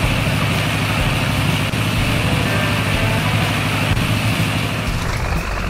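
Cartoon excavator engine sound effect running steadily, under background music. A rising whistle begins near the end.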